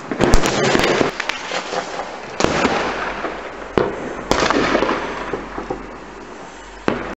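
New Year's Eve fireworks going off: a dense run of sharp bangs and crackling, with louder blasts about two and a half and four seconds in. The sound cuts off abruptly near the end.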